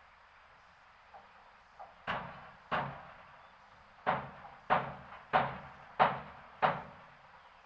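Two light taps, then seven sharp blows in an even rhythm, a little over half a second apart with a pause after the second, each dying away quickly.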